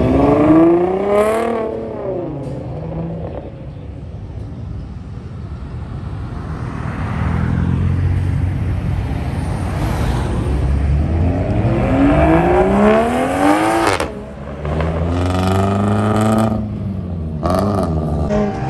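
Cars taking off hard one after another, each engine revving up with a rising pitch as it pulls away, with a steady low engine rumble between the runs.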